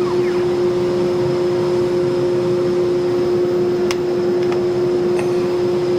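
CNC router spindle running steadily with a constant whirring hum. Two faint clicks come about four and five seconds in.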